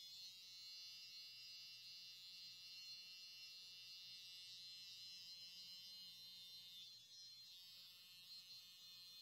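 Electric hair clippers with a number 1 guard buzzing faintly and steadily while trimming the short hair at the nape.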